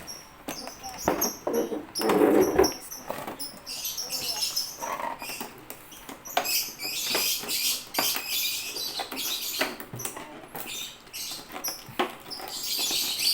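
Plastic and cardboard packaging being handled: crinkling and rustling with many small clicks and knocks, and a louder thump about two seconds in.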